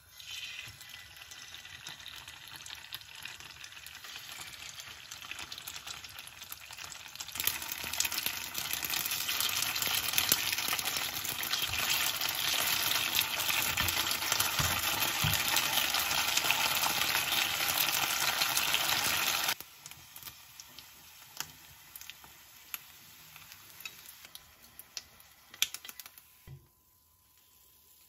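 Food sizzling as it fries in oil in a pan. The sizzle grows louder about a quarter of the way in, cuts off suddenly about two-thirds through, and is followed by a fainter sizzle with scattered clicks.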